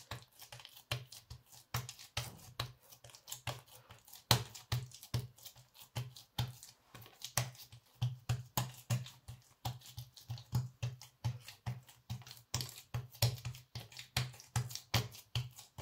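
Hands patting and pressing buttered msemen dough flat on a wooden countertop: an irregular run of soft fingertip taps and slaps, a few each second.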